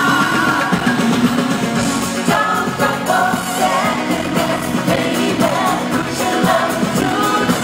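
Live pop concert music: a band playing with a lead singer over the arena sound system, heard from within the audience.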